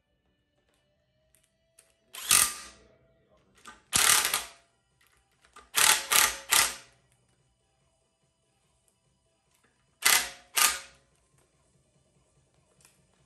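Cordless power driver running bolts into a Toyota 4A-GE engine's timing cover in short bursts: seven brief spins, one, then another, then three in quick succession, then two.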